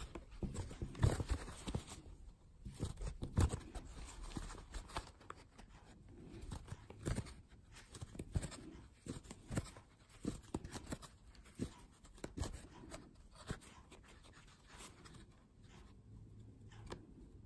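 Crochet hook working white yarn in single crochet stitches: faint, irregular small clicks and scratchy rustles of the metal hook and yarn being handled.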